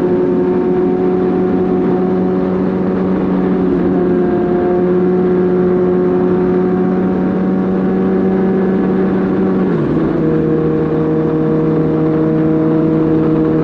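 Suzuki GSX-R1000 motorcycle's inline-four engine running at a steady high note under way; about ten seconds in its pitch drops suddenly and settles at a lower steady note.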